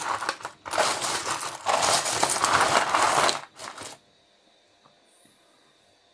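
Loose pieces of rough opal clattering and scraping against one another as they are handled, a dense rattle for about four seconds that then stops.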